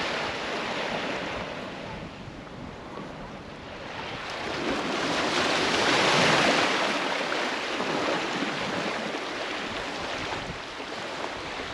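Ocean waves washing onto a beach, one surge swelling to a peak about six seconds in and then easing off.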